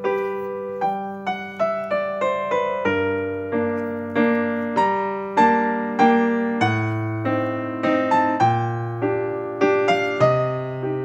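Background piano music: a gentle melody of separate notes, each ringing and fading, over slowly changing bass notes.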